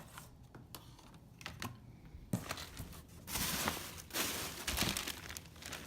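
Packaging being rummaged through and handled, rustling and crinkling: a few light clicks and taps at first, then louder, denser rustling from about halfway in.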